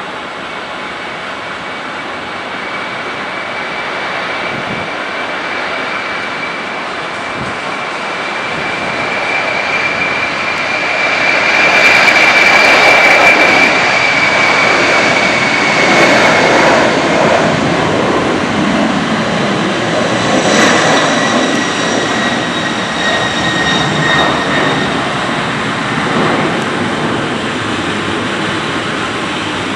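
Boeing 747-400's four jet engines at takeoff thrust, growing louder to a peak about 12 seconds in as the airliner rolls past and lifts off. A high whine over the engine noise drops slightly in pitch as it goes by, and the engines stay loud and steady as it climbs away.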